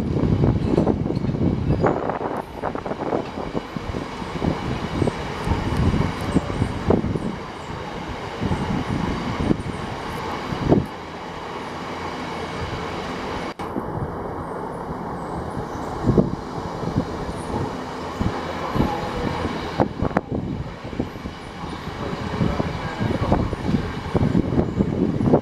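A train rolling past on the line, its running noise full of uneven knocks and thumps from the wheels. About fourteen seconds in comes a brief, steady high-pitched tone.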